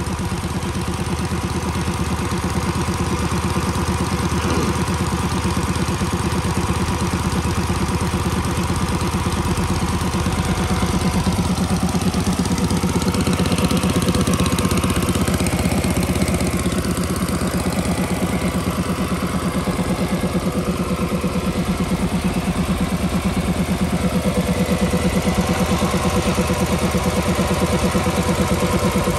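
Robin petrol engine of an Iwata portable air compressor running steadily at low throttle, held down by the unloader because the air tank is full.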